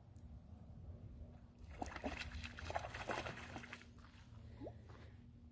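A hooked trout splashing at the surface close to the bank as it is reeled in, in a cluster of quick irregular splashes from about one and a half to four seconds in.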